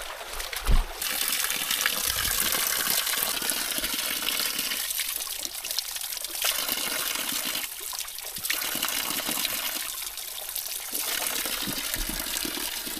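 Water pouring steadily from a bamboo pipe and splashing onto wet ground and rocks, a continuous gush that drops away briefly a few times. A low thump just under a second in.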